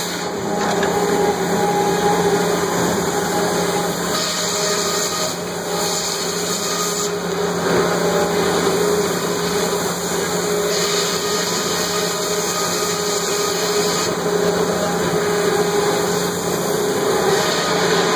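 Sawmill machinery running steadily: a droning hum with a steady low tone, and a higher hiss that swells and fades about four times.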